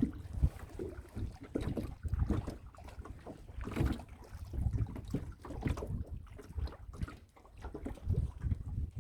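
Wind buffeting the microphone of a camera mounted on a small boat, with irregular splashing and knocking of water against the hull.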